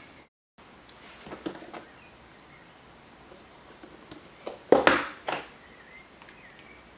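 Short bursts of handling noise, a few quiet clatters about a second in and a louder rustling clatter about five seconds in, with a bird chirping faintly in the background.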